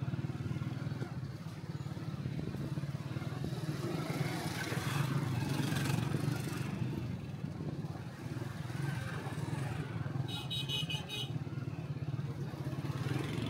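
Motorbike engine running steadily at low speed, heard from on the bike as it rides through a busy street. About ten seconds in, a rapid high-pitched beeping sounds for about a second.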